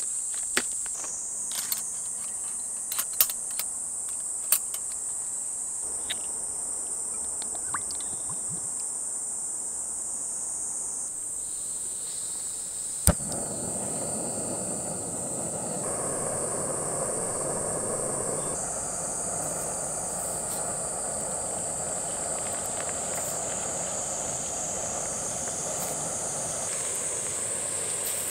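A steady high-pitched insect chorus, with scattered sharp clicks in the first few seconds and one loud crack about thirteen seconds in, after which a soft rushing noise joins.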